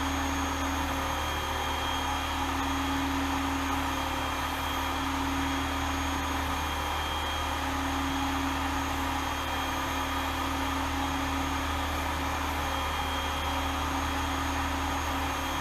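Work Sharp Ken Onion Edition belt sharpener running steadily: its variable-speed motor humming and the extra-fine polishing belt whirring, with no change in speed.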